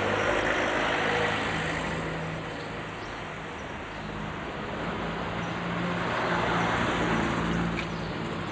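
Street traffic: car engines running and passing close by, the noise swelling near the start and again about six seconds in.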